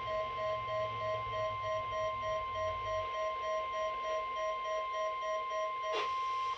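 A weather radio's 1050 Hz warning alarm tone sounds as one steady high tone, with a lower beep pulsing about three and a half times a second alongside it. The beeping stops with a click about six seconds in, and the steady tone cuts off suddenly at the end.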